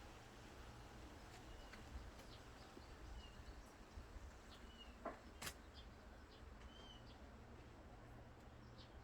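Faint outdoor ambience with a few short, distant bird chirps scattered through it and two soft clicks about five seconds in.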